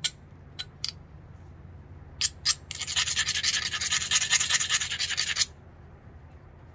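A few light clicks, then a grey abrading stone ground back and forth along the edge of a flint biface in quick, rapid strokes for nearly three seconds, stopping abruptly. This is the edge being ground and rounded to prepare a strong striking platform before percussion thinning.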